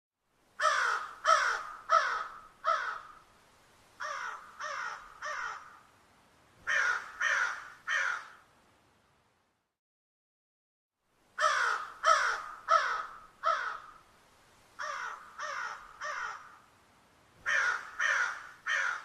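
Crow cawing in groups of short, harsh caws, each falling slightly in pitch: four loud caws, then three fainter ones, then three loud ones. After a pause of about two seconds, the same sequence repeats.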